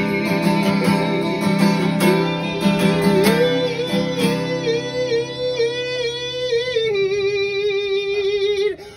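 Acoustic guitar strummed while a singer holds one long wavering note to close a song. The music stops sharply near the end.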